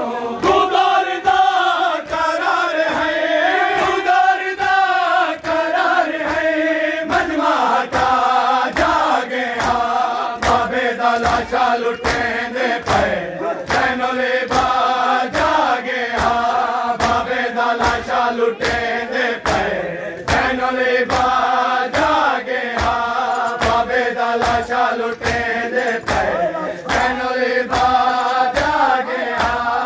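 Men chanting a noha lament in unison, over a steady beat of hands slapping bare chests in matam, about three slaps every two seconds.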